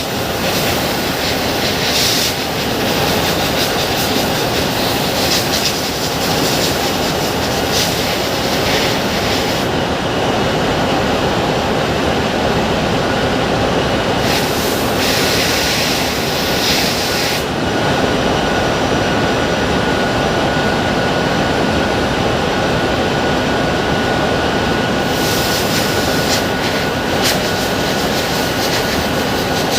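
Loud, steady machinery noise without a break; a faint steady whine joins in about thirteen seconds in.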